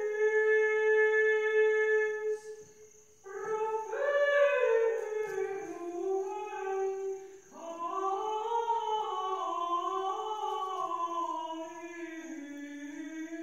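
A single wordless voice humming a slow melody, holding long notes that slide smoothly between pitches, with short breaks about three seconds in and again about seven seconds in.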